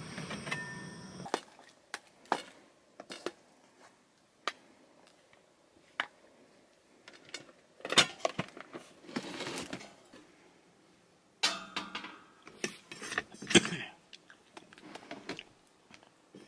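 Kitchenware being handled: scattered single clicks and knocks, then two busier spells of clinking clatter, about eight seconds in and again about twelve seconds in. A steady noise stops about a second in.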